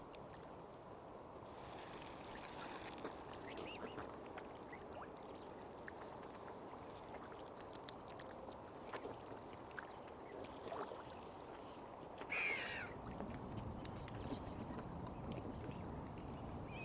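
Outdoor lakeshore ambience: a steady wash of water with small birds chirping, and one short, louder waterfowl call about twelve seconds in.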